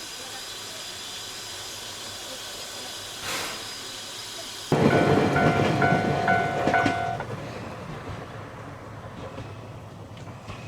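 Steam-hauled train running with a steady hiss. About halfway, the noise jumps suddenly louder, and a level-crossing bell rings about twice a second for a couple of seconds as the train passes the crossing, then fades into running rail noise.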